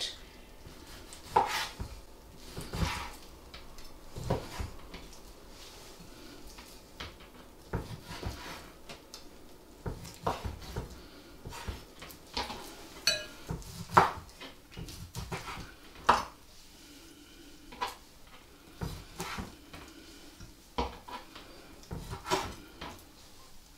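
Chef's knife cutting raw chicken breast into chunks on a wooden chopping board: irregular knocks of the blade against the board, one or two a second.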